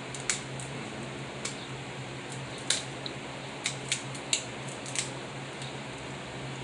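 Kitchen scissors snipping through snow crab leg shells: a series of short, sharp snips and cracks, about nine in all, several in quick succession around the middle, over a steady low hum.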